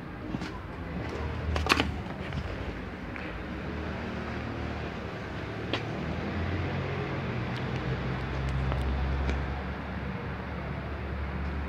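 Low, steady rumble of street traffic, with a sharp knock about two seconds in and a fainter one about six seconds in.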